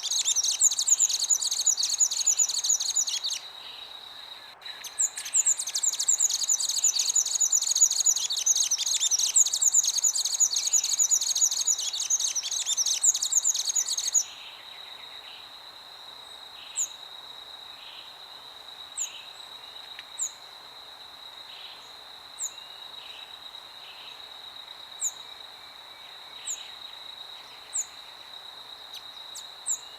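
Birdsong in a nature soundscape. A dense, rapid, very high trilling runs through the first half, with a short break a few seconds in, and cuts off suddenly about halfway. After that, short single high chirps repeat every second or two over a steady, thin, high-pitched whine.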